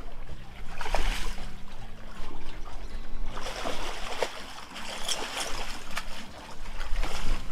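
Water splashing in bursts, about a second in and again for a couple of seconds midway, as a hooked channel catfish thrashes at the surface.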